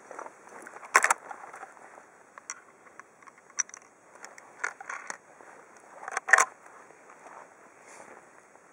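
Scattered clicks, scrapes and rustles of handling close to the microphone, with two louder clatters, one about a second in and one about six seconds in.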